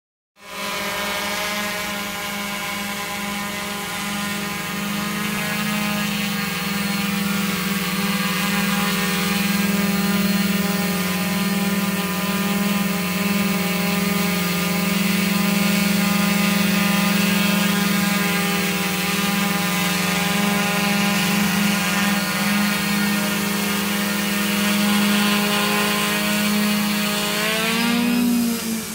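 Diatone White Sheep quadcopter's four 650 kV brushless motors and propellers humming steadily in flight, a low buzz with many overtones. Near the end the pitch briefly rises and then falls.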